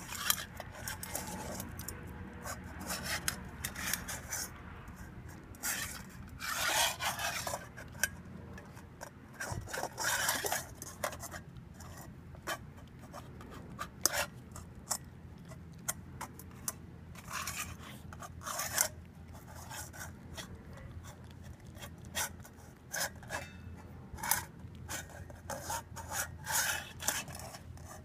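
Polish Lowland Sheepdog puppy eating from a stainless steel bowl with a rubber chew toy in it: irregular licking and chewing, the toy and muzzle rubbing and scraping on the metal, with frequent sharp clinks of the bowl and a few longer scraping stretches.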